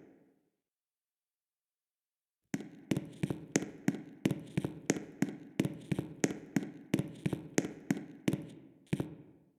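Fire alarm bell striking in a quick series of ringing strokes, about three a second. It stops just after the start, stays silent for about two seconds, then starts again and keeps striking until near the end, as the alarm system is tested.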